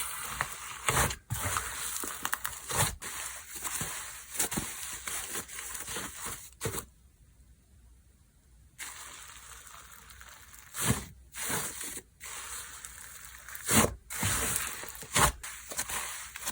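Hands squishing, stretching and folding glue-based slime, with sticky crackles and sharp little pops. It falls almost silent for about two seconds partway through, then the popping starts again.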